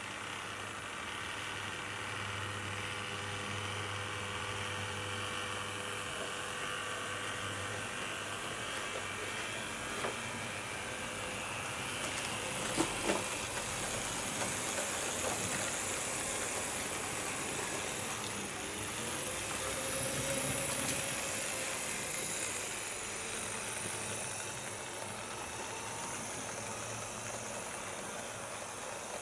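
HO-scale BR 78 tank locomotive model running on track under analog control: a steady whirr of the small electric motor, gearing and wheels on the rails. Two sharp clicks about thirteen seconds in.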